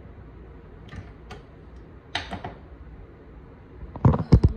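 Can opener being worked on a can: a few light clicks, a short scrape, then a quick run of loud knocks near the end.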